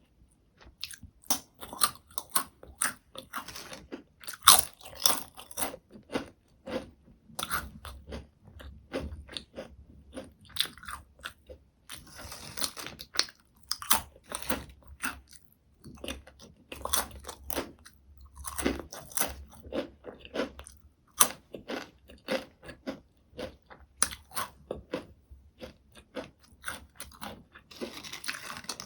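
Potato chips being bitten and chewed close to the microphone: crisp crackling crunches in repeated clusters, one bite after another.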